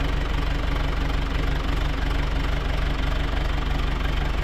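Tractor engine running steadily at an even speed, with a fast regular low pulse and no change in pitch.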